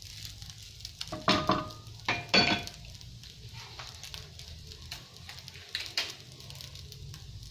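Fried rice frying and being stirred with a wooden spatula in a nonstick frying pan, with a faint sizzle. Two louder scraping knocks, each with a short ring, come about one and two seconds in, and a softer one near six seconds.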